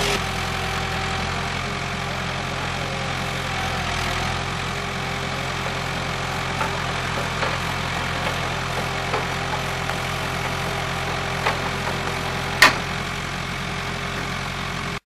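Terrain Master TC600 pole erection unit's engine running steadily under the crane-mounted auger, with one sharp click near the end.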